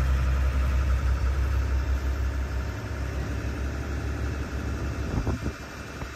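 Small work boat's motor running with a steady low hum, strongest for the first couple of seconds and then easing off, over the wash of choppy water past the hull. A brief louder rush of water or wind comes about five seconds in.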